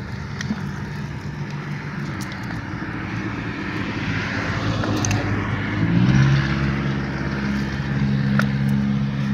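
An engine running steadily, its pitch stepping up and growing louder about six seconds in, with a few light clicks over it.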